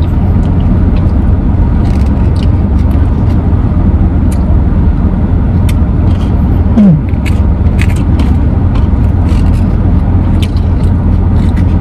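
A person eating soft ice cream with a spoon: scattered small clicks and scrapes over a loud, steady low rumble. A short falling hum comes about seven seconds in.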